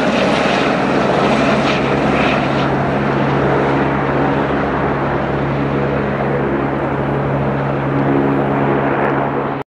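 Airbus Helicopters EC130T2 (H130) flying away after takeoff: the steady beat and whine of its single turboshaft engine, main rotor and shrouded Fenestron tail rotor. The sound grows duller after about three seconds as it climbs away.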